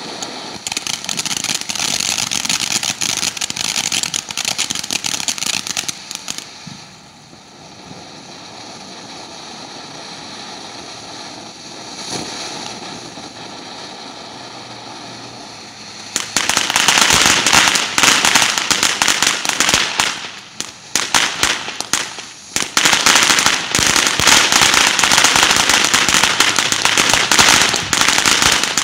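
Ground fountain firework spraying sparks, with a dense hissing crackle. It eases to a quieter hiss for a while, then from a little past halfway turns to loud, thick crackling that drops out briefly twice.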